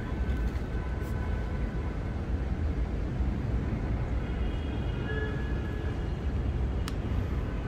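Steady low rumble of outdoor background noise, with faint thin high tones coming and going around the middle and two light clicks, about a second in and near the end.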